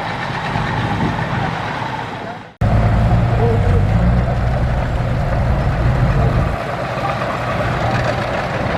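Heavy diesel construction machinery running with a steady engine rumble. About two and a half seconds in, the sound fades out and cuts straight to a louder, deeper engine run.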